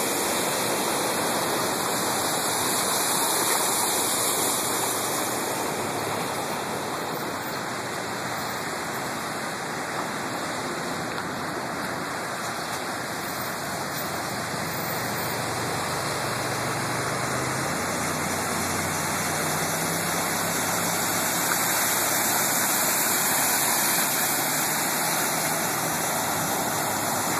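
Steady rushing and splashing of floodwater as cars drive through a flooded street, tyres throwing up spray. It swells a few seconds before the end as a car ploughs through, with a faint engine hum partway through.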